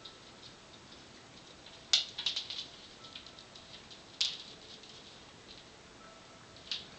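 Yorkie puppies playing with ice cubes on a hard laminate floor: short clattering bursts of clicks from ice and claws skittering on the floor, about two seconds in, again about four seconds in and near the end.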